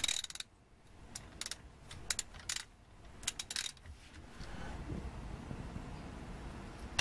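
Hand ratchet wrench clicking in several short bursts as a 14 mm hex bit loosens the rear differential drain plug. The clicks stop about four seconds in, leaving a faint background hum.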